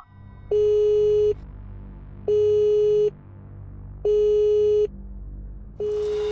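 Telephone line tone heard from a cordless phone handset after dialing: a steady mid-pitched beep just under a second long, repeating four times about a second apart, over a faint low drone.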